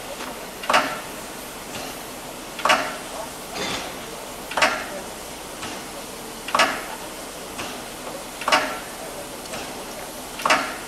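Two-cylinder 2-8-2 steam locomotive of class 41 moving off slowly, its exhaust chuffing in a slow even beat about once a second, every other chuff louder.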